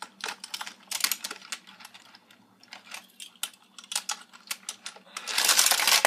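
Small die-cast toy cars and plastic playset parts clicking and clattering as they are handled, with a denser, louder rattling clatter starting about five seconds in.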